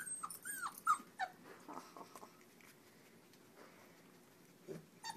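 Very young Standard Poodle puppy, 26 days old, whimpering: about four short, high-pitched squeaks in the first second and a half, then quiet.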